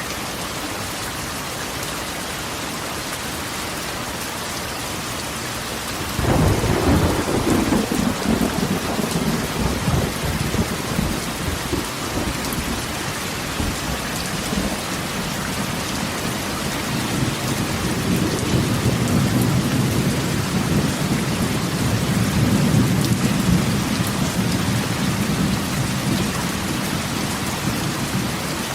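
Steady rain falling on a corrugated tin roof. About six seconds in, a sudden clap of thunder breaks out and rumbles for several seconds. A second long roll of thunder swells and fades in the second half.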